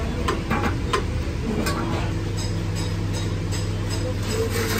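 Ratchet wrench clicking in short runs as the engine-oil drain bolt under a Royal Enfield GT650 is loosened, with a steady low hum behind it from about two seconds in.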